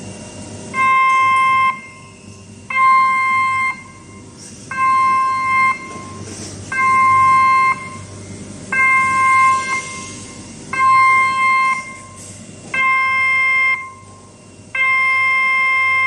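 Electronic warning beeper of a hydraulic sliding door sounding while the door moves: a pitched beep about a second long repeating every two seconds, eight times, the last one held on as a continuous tone near the end.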